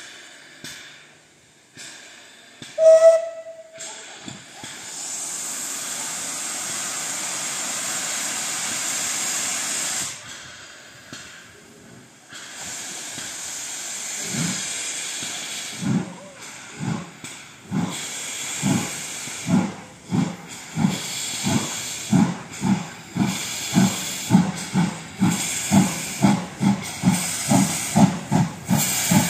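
MÁV class 424 steam locomotive: a short whistle toot about three seconds in, then several seconds of steady steam hiss. From about halfway the locomotive gets under way with exhaust chuffs that start slow and quicken to about two a second.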